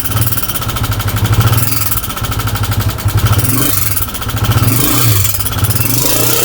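Honda CG 125 single-cylinder pushrod engine running with a loud mechanical clatter from inside the engine, its level swelling and dipping a few times. The mechanic traces the noise to a worn-down upper pushrod with excess play.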